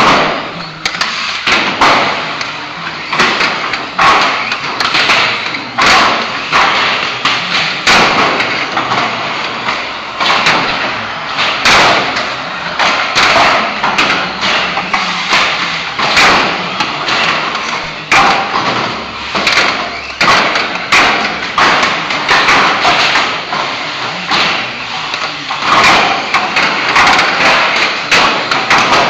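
Radio-controlled stock cars racing on a concrete track: a steady din of small motors and tyres, broken by frequent clattering thumps as the cars bash into each other and into the track barrier.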